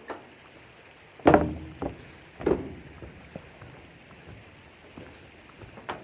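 Footsteps on the trackbed of an abandoned railway line: a few uneven, heavy steps. The loudest comes just over a second in and another follows about a second later.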